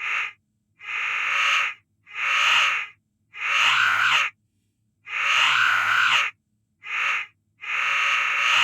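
A person making drawn-out, exaggerated hacking and coughing noises from the throat, about seven in a row, each up to a second or so long, with short silent gaps between them.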